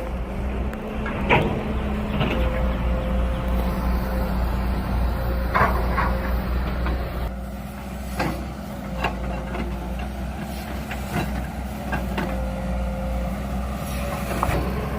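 Heavy diesel construction machinery running steadily with a low drone, with repeated sharp metallic clanks and knocks throughout.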